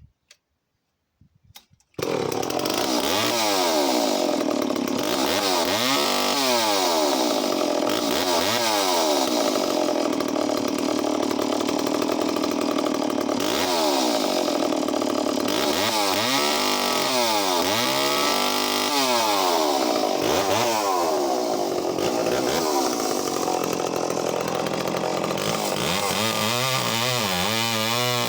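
Echo CS-451VL two-stroke chainsaw cutting through logs. It comes in abruptly about two seconds in, already running, and its engine revs up and drops back again and again, one cut after another.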